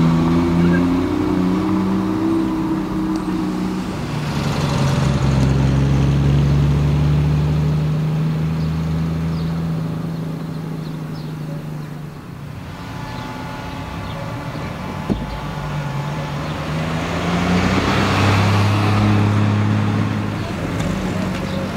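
Triumph TR6 straight-six engines and exhausts as the cars drive past one after another, the engine note swelling and fading with each pass, three times in all.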